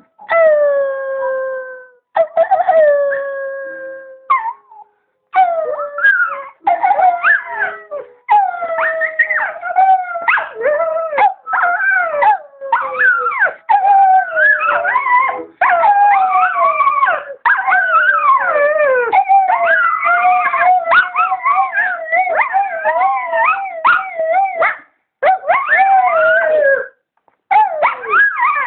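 Two female dogs howling together. It opens with a couple of long howls that fall in pitch, then from about five seconds in the two voices overlap in wavering howls that glide up and down, broken only by short pauses for breath.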